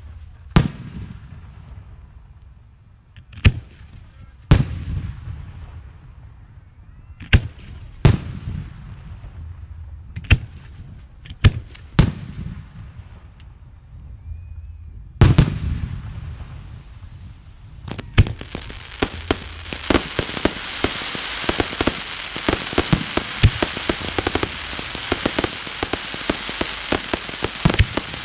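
Aerial firework shells bursting one after another, each a loud bang with a fading echo, about a dozen of them over the first sixteen seconds. From about eighteen seconds in, a dense, continuous crackle of many small pops takes over.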